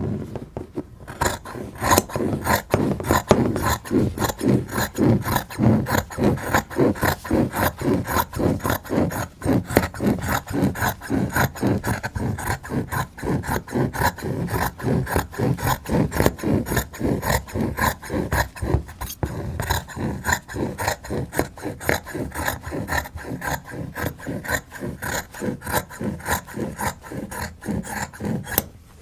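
Fabric scissors cutting through quilting cotton in a long run of quick, even snips, about three or four a second. The snipping starts about a second in and stops shortly before the end.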